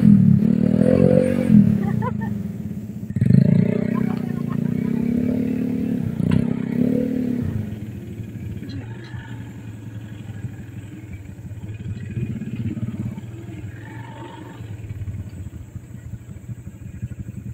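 Small motorcycle engine revving hard and unevenly as the bike labours through deep mud, its pitch rising and falling. About seven seconds in it drops to a quieter, steady low-rev running.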